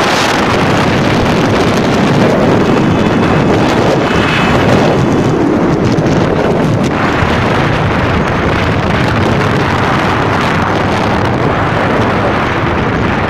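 Steady, heavy wind rushing over the microphone of a 70cc motorcycle being ridden along at speed, with the bike's small engine running underneath.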